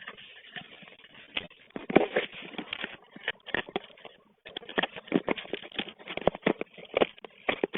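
Trading card packs and cards being handled: irregular rustling and crisp clicks and taps, with a brief pause about four seconds in.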